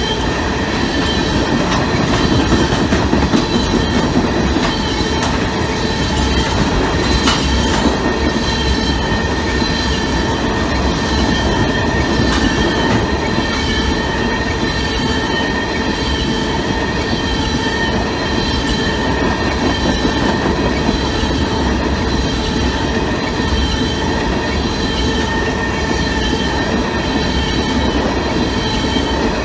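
Freight train cars rolling steadily past: a continuous rumble and clatter of steel wheels on rail, with steady high-pitched squealing tones over it.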